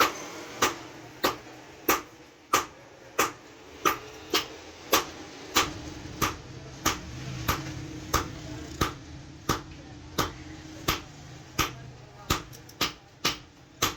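Hand hammer striking metal on an anvil in a steady forging rhythm, about one and a half blows a second, with a few quicker blows near the end.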